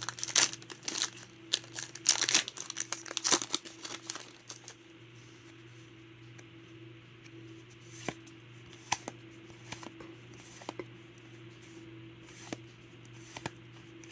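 Foil booster-pack wrapper being torn open and crinkled for about four seconds. After that come scattered light clicks as the cards are handled, over a faint steady hum.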